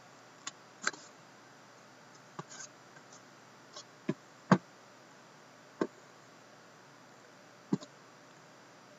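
Scattered clicks and knocks, about seven in all, of a sealed cardboard hockey-card box being handled; the loudest knock comes about four and a half seconds in.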